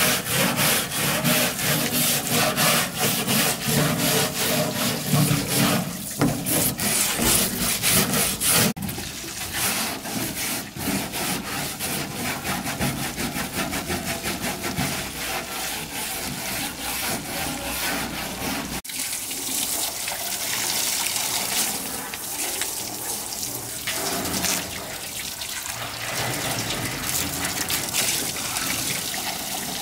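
A stiff brush scrubbing a truck's wet, rusty metal bed in quick rhythmic strokes. About nine seconds in, the scrubbing gives way to water from a garden hose spraying steadily onto the bed floor.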